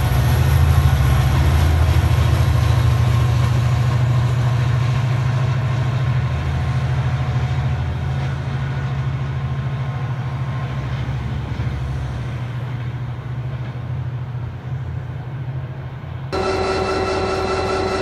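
Diesel train running, its deep engine rumble slowly fading as it draws away. Near the end the sound cuts to another train passage with a steady whine.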